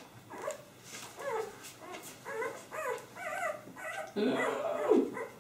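Young Drentsche Patrijshond puppies whimpering and squealing in a string of short, high, wavering calls, with a louder, longer squeal about four seconds in.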